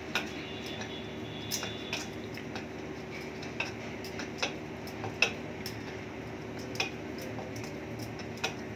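Sparse light clinks and taps of kitchen things, about nine in all, one near the start ringing briefly, as naan dough is pressed flat by hand on a wooden board, over a steady faint hum.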